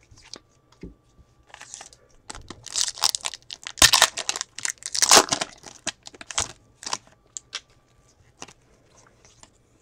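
Foil wrapper of a football trading-card pack being torn open and crinkled by hand, in irregular crackling bursts that are loudest in the middle and fade out after about seven seconds.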